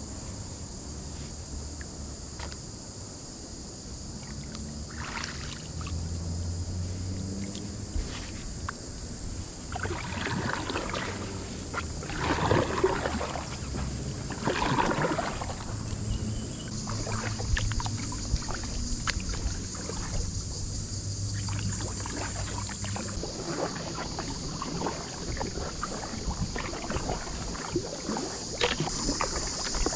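Kayak paddling: paddle blades dipping and splashing in calm creek water, with irregular strokes that are loudest about ten to sixteen seconds in. A steady high-pitched insect drone sits underneath.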